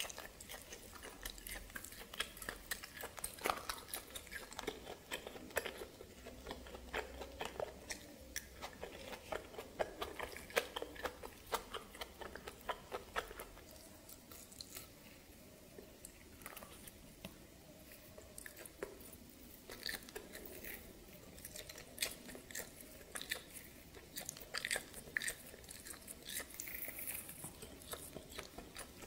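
Close-miked mouth sounds of biting and chewing steamed snake meat, with many sharp small clicks and crackles. They thin out for a few seconds midway, then come thicker and crisper toward the end.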